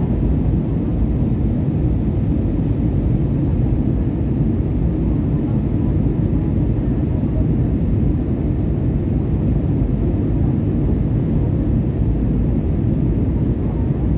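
Jet airliner cabin noise heard from a window seat during the descent to land: a steady low rumble of the engines and the airflow over the fuselage.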